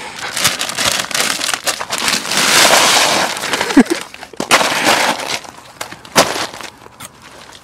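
A plastic bag of ice crinkling open, then ice cubes pouring and clattering into a collapsible fabric bucket, followed by a few sharp knocks as plastic cola bottles are pushed down into the ice.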